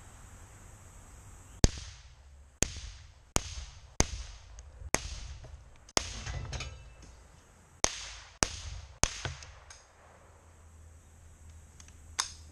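A semi-automatic .22 LR rifle firing CCI Stinger hyper-velocity rounds: about nine sharp shots in quick, uneven succession, roughly one a second with a few close pairs, each with a short echo. The rifle cycles the long-cased Stingers reliably.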